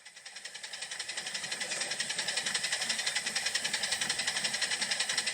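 A rapid, even mechanical pulsing like a running engine or power tool, about eight beats a second, swelling in over the first two seconds and then holding steady.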